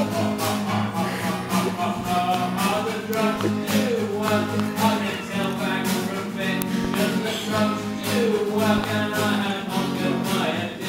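Acoustic guitar strummed in a steady rhythm, with a man singing over it, played live.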